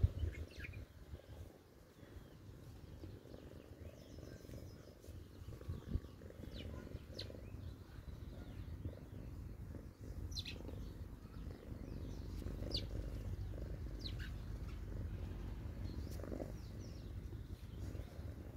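Domestic cat purring close to the microphone while being stroked: a low steady rumble that grows a little louder in the second half. A few brief high chirps sound over it, and there is a single knock about six seconds in.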